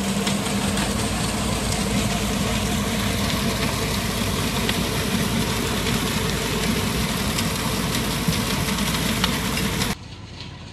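Concrete lorry running steadily with its engine and discharge machinery going while it pours concrete down its chute around a steel post. The sound cuts off suddenly about ten seconds in.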